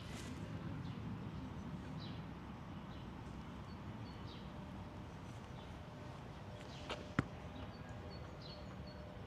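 Outdoor park ambience with a steady low background and small birds chirping in short repeated notes. A single sharp click sounds about seven seconds in.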